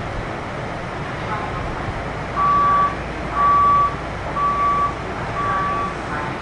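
Four evenly spaced electronic beeps, each about half a second long and about one a second apart, starting a little over two seconds in, over the steady hum of a Kintetsu 1233-series train standing at a station.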